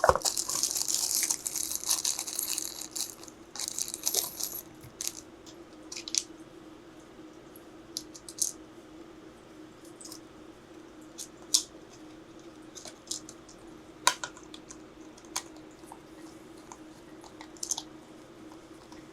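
Hands handling a 3D-printed plastic mount and its magnets: a rough scraping rub for the first few seconds, then scattered light clicks and taps. A steady low hum runs underneath.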